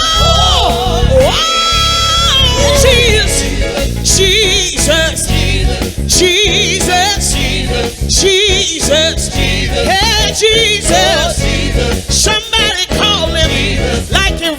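Gospel song: a singer holding long notes with vibrato over bass and drums.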